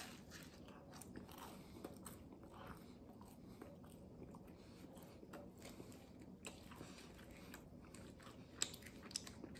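Faint chewing of pizza crust: quiet biting and mouth noises, with a couple of slightly sharper ticks near the end.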